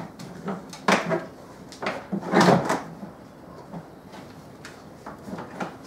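Hard plastic knocks and clatter from a plastic storage tote and its lid being lifted and shifted: a few separate sharp knocks, with a longer rattle about two and a half seconds in and fainter knocks near the end.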